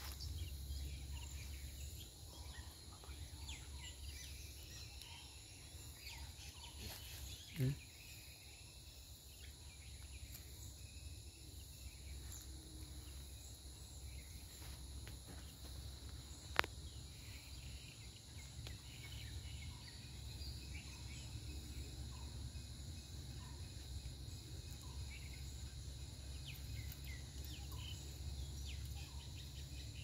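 Faint outdoor ambience: scattered short bird chirps and insect calls over a low, steady rumble. A short, louder low thump comes about eight seconds in, and a single sharp click about seventeen seconds in.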